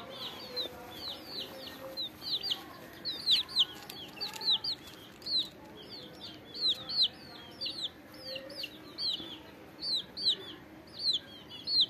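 A group of young chicks peeping: many short, high peeps that fall in pitch, a few a second and overlapping.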